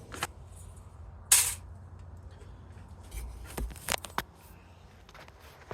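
Small pieces of scrap metal being handled: a short scraping rustle, a soft thud, then a few sharp clicks and clinks.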